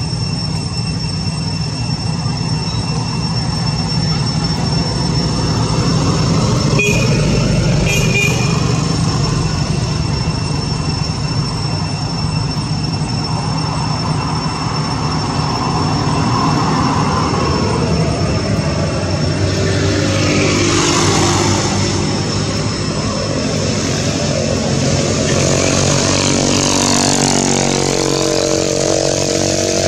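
Steady mechanical drone like an engine running, with a continuous low hum. In the last several seconds a lower, engine-like note with several pitched lines comes in over it.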